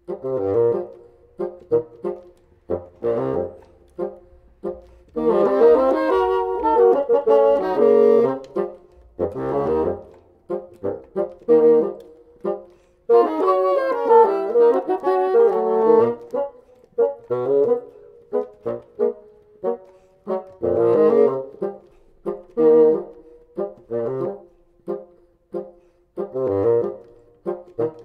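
Two bassoons playing a groove-based contemporary duet: a rhythmic pattern of short, detached notes, broken by louder, busier runs of several seconds.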